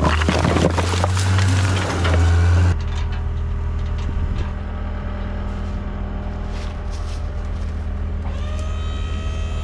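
Diesel engine of a John Deere track skid steer running steadily under load, with scraping and clattering of dirt and concrete for the first few seconds.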